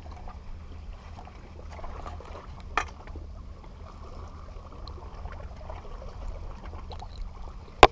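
Sea water washing against the rocks, a faint steady wash with a low rumble under it. A light tick comes about three seconds in, and a sharp click just before the end.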